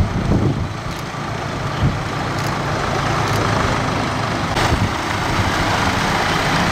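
Farm tractor's diesel engine running steadily as it drives through shallow floodwater, with water splashing and sloshing around its tyres.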